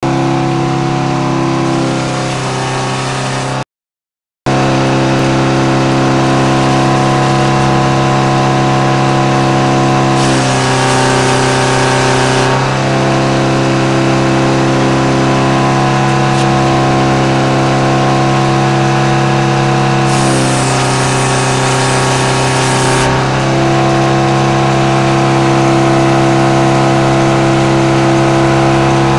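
Frick No. 00 circle sawmill running with a steady, even mechanical hum from its drive and spinning blade. The sound cuts out for under a second about four seconds in. Twice, for two to three seconds each, it turns harsher and hissier as the blade cuts through a log.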